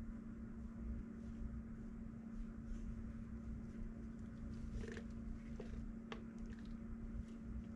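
Low room noise with a steady hum; about five to six seconds in, a few light scrapes and taps as a silicone spatula scrapes the last melted wax out of a plastic measuring jug.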